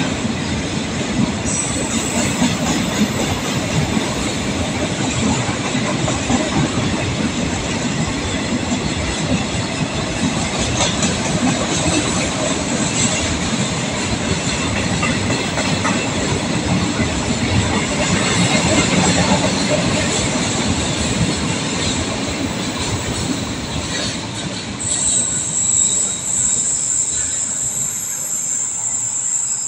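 A long KTMB container freight train's loaded flat wagons rolling steadily past: a continuous rail rumble with the wheels clacking over the rail joints. The rumble thins near the end as the last wagons draw away.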